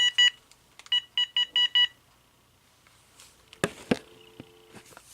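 Cordless phone key beeps: two quick beeps, then a run of five, followed about three and a half seconds in by two sharp clicks from handling.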